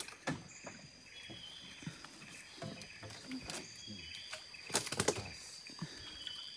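Quiet creek-side ambience: a steady high-pitched drone, like insects in the vegetation, with a few short chirps over it. Scattered light clicks and knocks from handling tackle in the wooden canoe, the most about five seconds in.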